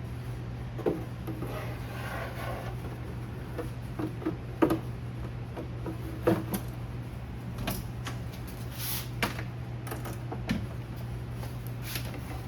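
Scattered knocks and clicks of the Macintosh Classic's metal logic-board bucket being slid back into its plastic case, over a steady low hum.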